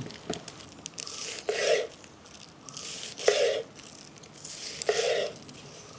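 A knife slicing through a stack of Malabar spinach leaves onto a wooden board: three short cuts about a second and a half apart.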